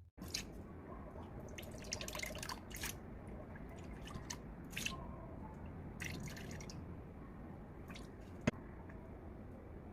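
Faint kitchen handling sounds: scattered light clicks and taps over a low steady hum, with one sharper click about eight and a half seconds in.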